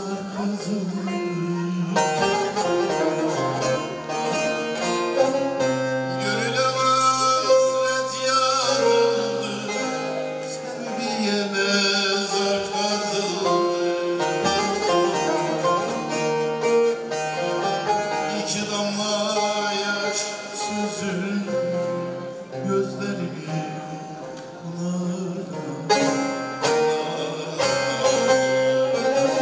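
Bağlama (long-necked Turkish saz) played live, plucked notes running through a Turkish folk tune, with a man's voice singing over it.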